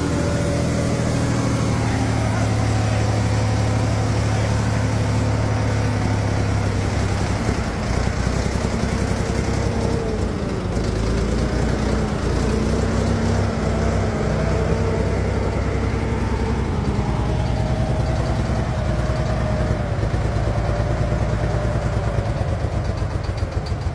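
Volvo truck's diesel engine running steadily, its speed drifting down and back up a little partway through.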